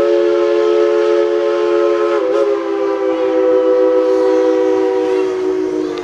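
Steam locomotive's chime whistle blowing one long, steady chord of several notes. It sags slightly in pitch about two seconds in and eases off near the end.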